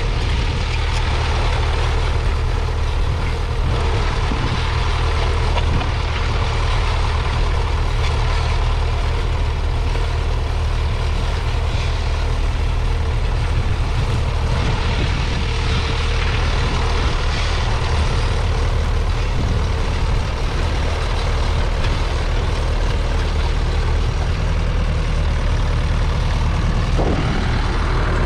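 A 1958 Massey Ferguson 35's three-cylinder diesel engine running steadily under load as the tractor pulls a two-furrow mounted plough.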